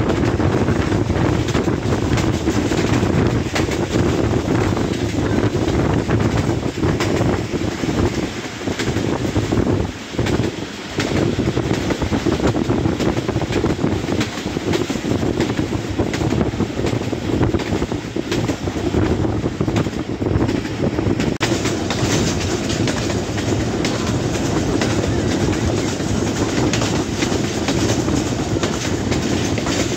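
Hazara Express passenger train running along the track, heard from the carriage: a steady rumble of wheels on rails with irregular clacks, and wind on the microphone.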